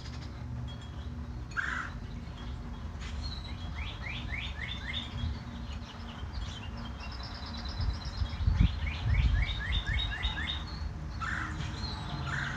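Northern cardinal singing: two runs of quick, repeated down-slurred whistles, with another bird's short high trill between them. A low rumble swells in the background about two-thirds of the way through.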